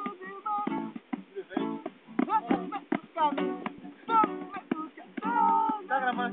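Acoustic guitar strummed in a steady rhythm, with people's voices over it.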